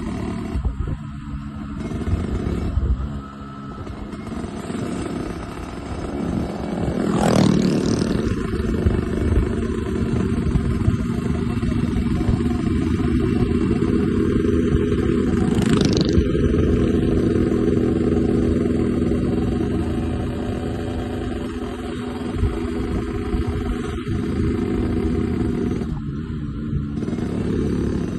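Yamaha RX-King's two-stroke single-cylinder engine running steadily, with two brief revs.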